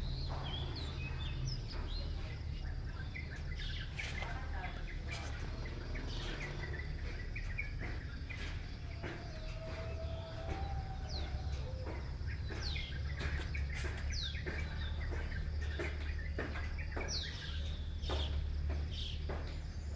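Small birds chirping in a morning chorus: many short, quick, falling notes scattered throughout, over a steady low rumble.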